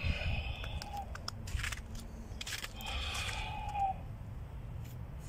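A man breathing deep and hard as he stands in icy ice-hole water, controlled breathing against the cold shock. Two long, noisy breaths, the second ending in a short rising voiced sound, with a few small clicks over a steady low rumble.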